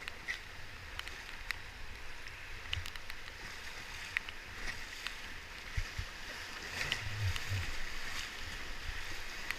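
River water rushing steadily past a raft, with scattered sharp splashes or knocks and a few low rumbles, the loudest about seven seconds in.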